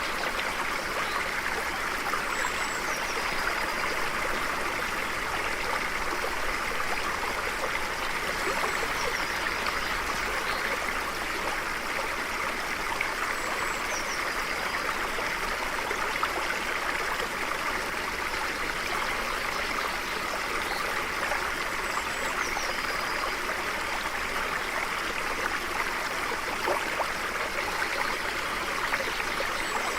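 A stream flowing steadily over rocks, a constant rushing and trickling of water. Faint, short, high bird chirps come through every several seconds.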